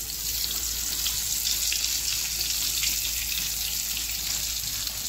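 Brinjal slices shallow-frying in hot oil in a kadai: a steady sizzle.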